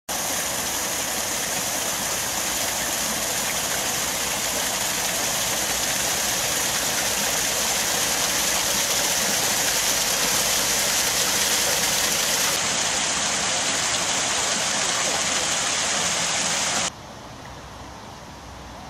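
Water gushing through the leaking wooden gate of a canal lock and splashing down into the lock chamber: a loud, steady rush. About seventeen seconds in it cuts off suddenly to a much quieter steady outdoor background.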